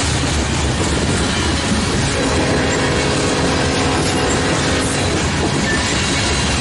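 Freight train of open-top hopper cars rolling past at close range: a steady loud rumble and clatter of steel wheels on the rails. A whine of several tones joins in about two seconds in and fades out about five seconds in.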